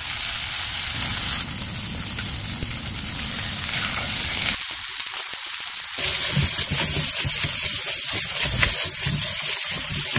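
Beef slices frying in hot oil in a pan: a steady sizzle. The sizzle changes abruptly twice, becoming brighter and hissier about six seconds in.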